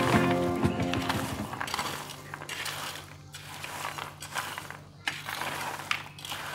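A metal spatula stirs and scrapes through a pile of crisp deep-fried cowpeas on paper. The hard beans give a dry, irregular rattling clatter.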